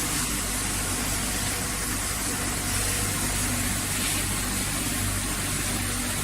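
Hatchery basket washing machine running: a steady motor hum under a constant high hiss.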